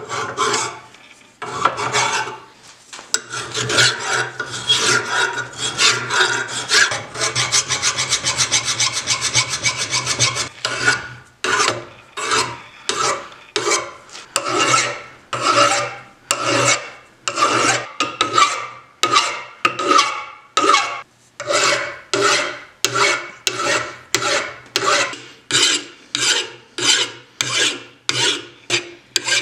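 Flat hand file scraping across the steel head of an old ball-peen hammer clamped in a vise. The strokes come quick and close together at first; a few seconds in they give way to evenly spaced push strokes, about one and a half a second.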